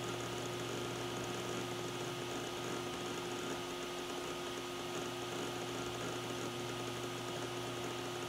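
Western Digital Raptor X WD1500AHFD 10,000 RPM hard drive spinning up to speed. It gives a steady whine with an even hiss behind it.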